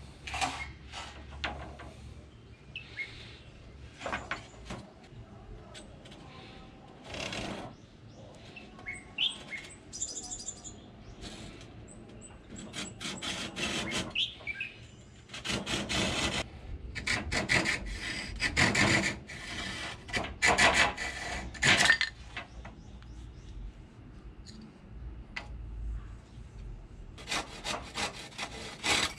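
Hand saw cutting through a wooden board in runs of quick back-and-forth strokes. There are a few knocks as the board is handled in the first seconds, the longest run of strokes is in the middle, and another comes near the end. Birds chirp in the quieter stretch before the sawing starts.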